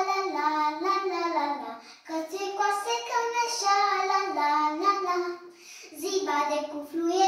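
A young girl singing a Romanian folk song, holding notes and stepping between pitches, with short pauses for breath about two seconds in and again near six seconds.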